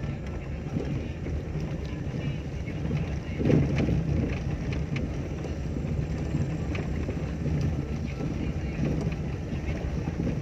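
Car driving slowly over a rough dirt track, heard from inside the cabin: a steady low rumble of engine and tyres, with scattered small clicks and knocks as the wheels go over stones and ruts. A louder thump comes about three and a half seconds in.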